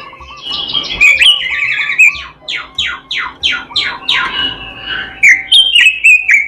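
Pekin robin (red-billed leiothrix) singing a loud, fast, varied song: repeated short phrases, then a run of quick downward-sweeping notes about four a second, and sharp high notes near the end.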